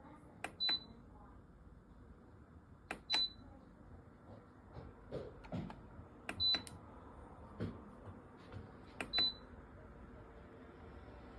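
Four short high electronic beeps, each coming with a click a few seconds apart, typical of buttons being pressed on a dishwasher's control panel (Midea SV 5.14K10C).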